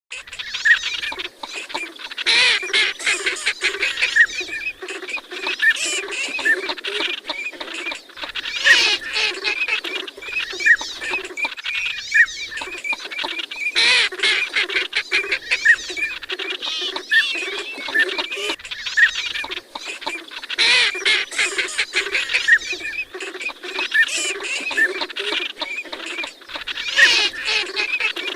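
A flock of northern pintail and teal ducks calling continuously: short high whistles over lower quacking and grunting notes, swelling into louder bursts about every six seconds.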